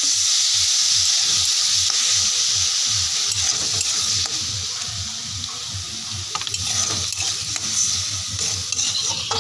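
Spiced onion and tomato masala sizzling hard in a hot kadai just after water has been added to cook it down, with a steel spatula stirring and scraping the pan. The sizzle eases from about four seconds in as the water boils off.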